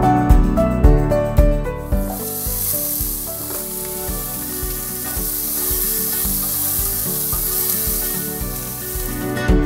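Acoustic guitar music, then about two seconds in it gives way to onion and asparagus pieces sizzling as they fry in a metal pan while being stirred with a spatula. The steady sizzle runs until the music returns near the end.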